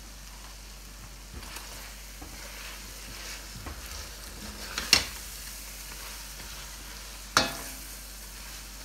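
Lamb karahi sizzling in oil in a stainless steel pan as it is stirred and scraped with a spatula, with two sharp knocks about two and a half seconds apart.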